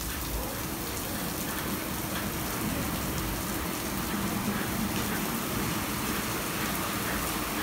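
Kärcher CBC rollover car wash at its brush stage: spinning foam brushes working over a car under a water spray, a steady rushing hiss.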